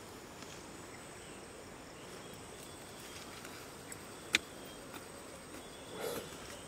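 Quiet background with a faint, steady high-pitched insect drone; a single sharp knock about four seconds in and a brief scuffing rustle near the end.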